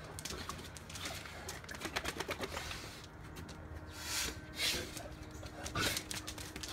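Two large dogs play-wrestling on concrete: quick clicks and scuffs of claws and paws, with a few short, louder breathy sounds past the middle.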